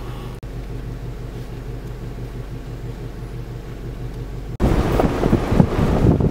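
Vehicle engine idling with a steady low hum. About four and a half seconds in it cuts suddenly to loud, gusty wind buffeting the microphone as the vehicle moves.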